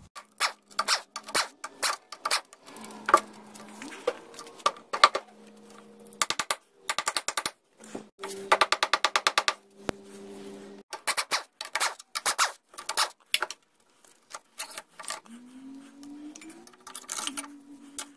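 Metal tool work on an Evinrude 60 HP outboard's lower unit while its water pump housing is unbolted and lifted off: many sharp metallic clicks, a fast rattle of clicks around the middle, and a small power tool whirring in short spells, rising in pitch near the end.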